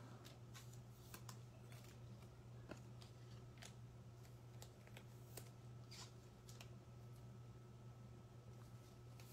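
Near silence: room tone with a steady low hum and faint, scattered light clicks every half second or so.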